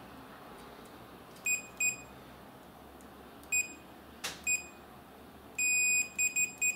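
A digital multimeter's continuity beeper sounds a series of short beeps, with one longer beep about five and a half seconds in, as a salvaged micro switch is pressed between the probes. Each beep shows the switch contacts closing: the switch works. A single sharp click comes between the beeps.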